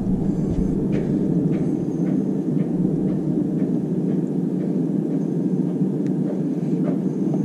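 Electric kettle coming to the boil: a steady rushing noise with faint scattered ticks over it.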